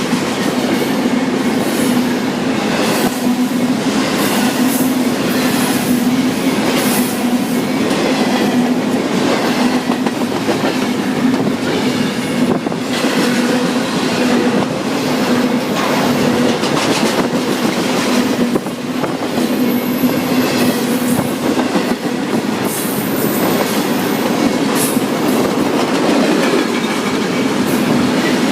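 Freight train cars rolling past at close range: a steady loud rumble with wheels clacking over rail joints again and again, and a thin high wheel squeal about twenty seconds in.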